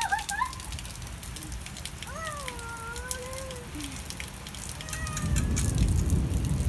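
Steady rain falling on the path and grass, with a small child's long, high-pitched call about two seconds in. A low rumble rises near the end.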